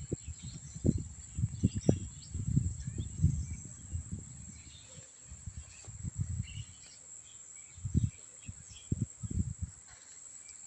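Outdoor ambience of a steady high-pitched insect drone with faint scattered chirps. Irregular low rumbles rise and fall under it, strongest in the first few seconds and again around eight to nine seconds in.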